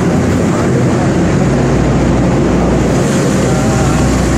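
Loud, steady rumble of vehicle engines echoing in a road tunnel, with a low hum underneath.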